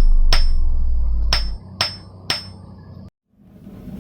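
Blacksmith's hammer striking on an anvil: four sharp, ringing blows, the last three about half a second apart, over a loud low hum that stops about a second and a half in. The sound cuts off abruptly about three seconds in.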